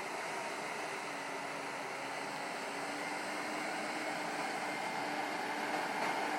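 Heavy logging truck running steadily, engine and road noise without a break.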